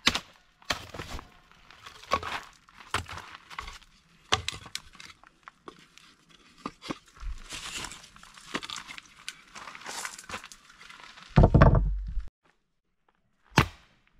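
Hatchet splitting firewood into kindling: repeated sharp knocks of the blade into the wood, with the wood cracking apart and split pieces clattering. A heavier thud comes near the end, then after a short gap one more knock.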